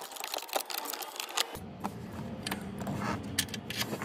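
Short 3/8-inch ratchet with a swivel extension clicking in quick, uneven runs as a screw is worked loose.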